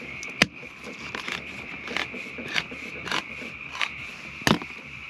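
Hand-held manual can opener cutting around the rim of a steel can, clicking about every two-thirds of a second as the key is turned. A steady high-pitched chorus of frogs runs behind it.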